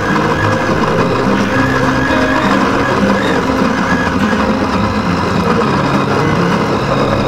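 Countertop electric blender running steadily at full speed, its motor puréeing a jug of fresh tomatoes blended without water.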